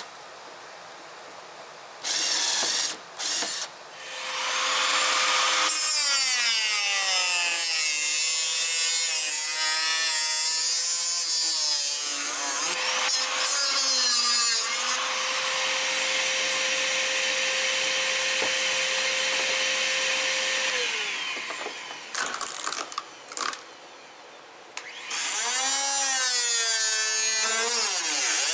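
Handheld electric power tool sanding a fiberglass cowl. It is triggered in a few short bursts, then runs for about seventeen seconds with its pitch wavering under load. After more short bursts it starts up again near the end.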